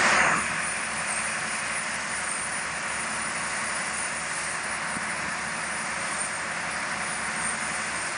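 Large barge-mounted 24-inch dewatering pumps running at full flow, their discharge water gushing into the river: a steady rushing noise with a low, rapid engine pulse beneath it. The level drops a little just after the start, then holds steady.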